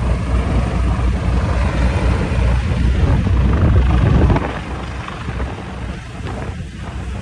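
Ferry engines under way, heard from the open stern deck: a loud, low, steady throbbing rumble with some wind on the microphone. The low rumble drops away about four seconds in.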